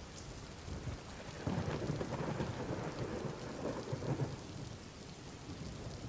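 Steady rain falling, with a low roll of thunder that swells about a second and a half in and dies away a few seconds later.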